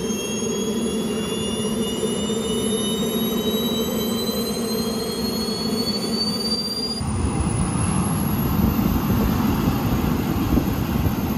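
Twin model jet turbines of a radio-controlled A-10 running, their high whine slowly rising in pitch. About seven seconds in the sound changes abruptly to a louder, rougher jet rush with a high whine on top.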